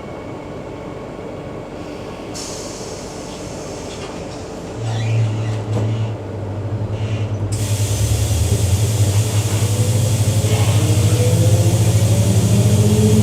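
Electric multiple unit train's traction motors: a low hum sets in about five seconds in, then a whine rises steadily in pitch as the train accelerates, growing louder.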